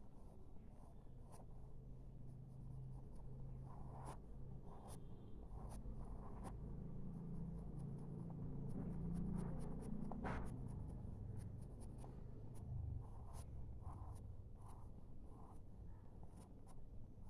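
A pen scratching on paper in short, quick hatching strokes, over a low steady hum.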